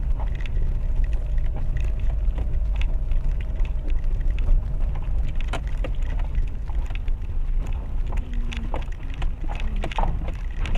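Inside a Renault Duster crawling downhill over a rough, rocky mountain track: a steady low rumble from the car, broken by many short knocks and rattles from the wheels and suspension going over stones.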